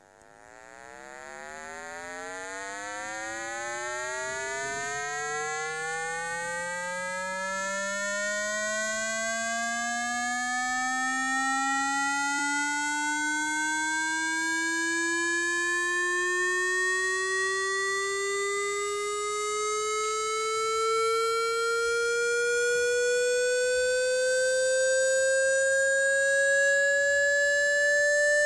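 Electronic water-ejection tone for clearing water from a phone speaker: a buzzy, overtone-rich tone that glides slowly and steadily upward from a low hum toward a higher mid pitch. It swells in over the first few seconds, then keeps growing slowly louder.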